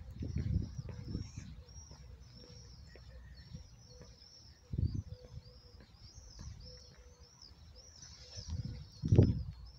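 Small birds chirping and twittering without a break, with low muffled thumps about half a second in, near five seconds and, loudest, just after nine seconds.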